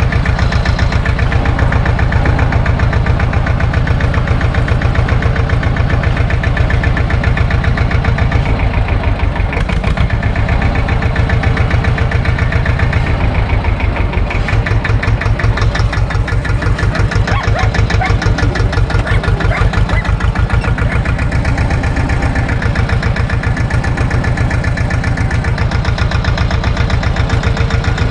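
Same tractor's diesel engine running steadily, its firing pulses even, dipping briefly twice near the middle.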